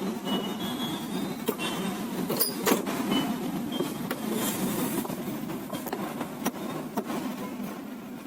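Scattered sharp clicks and light knocks of printer parts being handled and screwed back together, over steady background noise.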